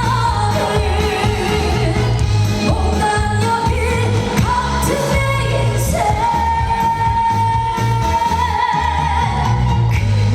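Live trot song: a singer's voice over backing music with a steady bass beat, holding one long note with vibrato from about six seconds in until near the end.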